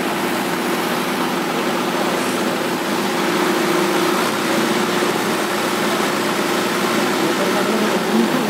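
Diesel engines of two tractors, a Sonalika DI 750 and an Indofarm, running steadily at idle while hitched back to back for a tug-of-war pull.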